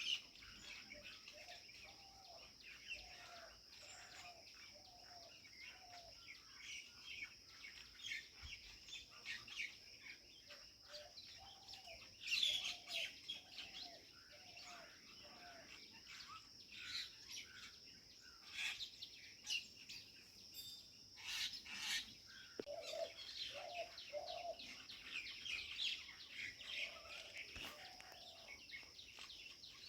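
Many small birds chirping and twittering over a steady high insect drone. A lower call comes a few times in runs of four or five notes.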